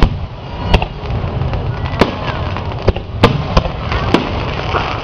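Aerial fireworks shells bursting: about six sharp bangs spread over a few seconds, over a steady low rumble from the show.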